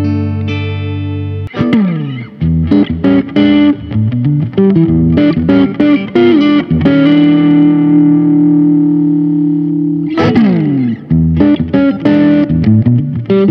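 Grassroots by ESP G-Snapper electric guitar played through an amp: a clean chord rings out for about a second and a half, then distorted lead playing on the neck and middle pickups follows, with quick picked phrases, a long held note and fast runs that fall in pitch, one near the start and one about ten seconds in.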